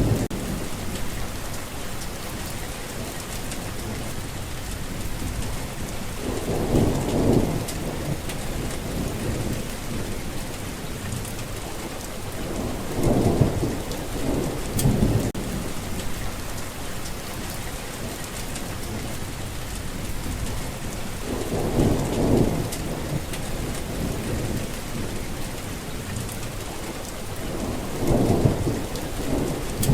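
Steady rain falling, with thunder rumbling low four times, each roll lasting a second or two.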